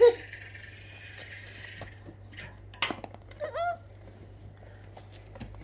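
A young child's short vocal sounds: a loud brief one at the start and a second that rises and falls about three and a half seconds in, with a sharp click just before it, over a steady low hum.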